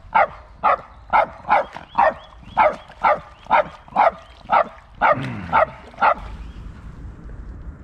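A dog barking in quick, high yaps, about two a second, a dozen or so in a row, stopping about six seconds in. It is excited barking, the dog worked up over the freshly landed carp.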